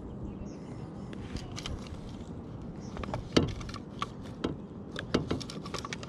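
Scattered sharp clicks and light metallic rattles of fishing gear being handled as a caught bass is hooked onto a hand-held fish scale. The clicks come thicker in the second half.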